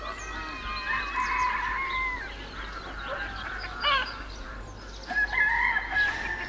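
Domestic poultry calling, several overlapping drawn-out calls with a short break in the middle.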